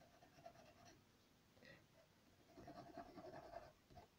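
Faint pencil strokes on drawing paper: quick, light shading strokes in two runs, with a pause of a second or so between them.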